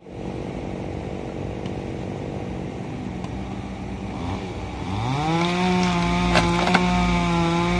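Tracked excavator's diesel engine running steadily, then rising in pitch about five seconds in and holding at higher revs while the stump shear works. Two sharp cracks come near the end.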